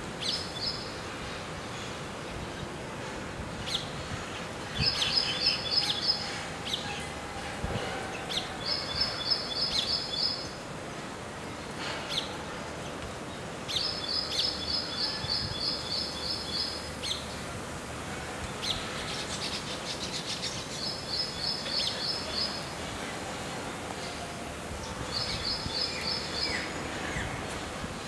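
Male baya weaver singing: about six short bouts of fast, evenly spaced chattering notes, high-pitched, each lasting a second or two and coming a few seconds apart.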